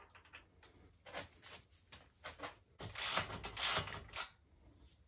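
Ratchet wrench with a 14 mm socket turning an acorn nut onto a motorcycle rear-rack bolt. It gives several short runs of ratcheting clicks, the loudest and longest about three seconds in.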